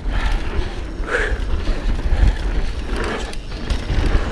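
Mountain bike rolling fast on a dirt trail: tyres and drivetrain rattling, with heavy wind rumble on the helmet camera's microphone. The rider breathes hard, an exhale roughly every two seconds.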